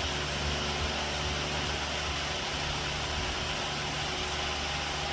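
A machine running steadily: a low hum with a constant hiss and a faint steady tone.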